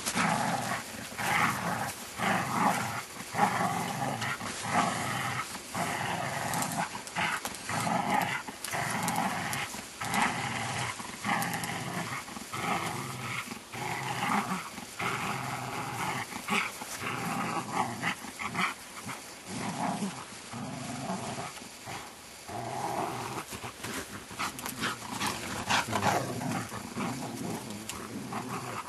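A Groenendael (black Belgian shepherd) growling in repeated, irregular bursts while tugging against a person in a tug-of-war game: play growling.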